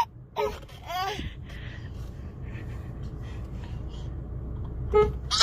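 A baby's short gasping squeals and breaths trailing off after a fit of laughter, then a lull over a low steady rumble. About five seconds in comes a brief car-horn toot, and the baby bursts into laughter again at the very end.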